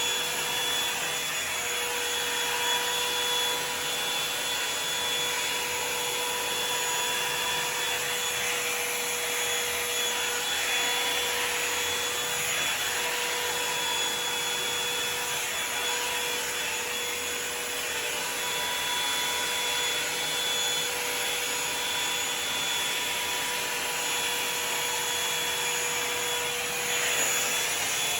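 Revlon One Step Volumizer hot-air brush running steadily: a fan-and-motor rush with a steady high whine.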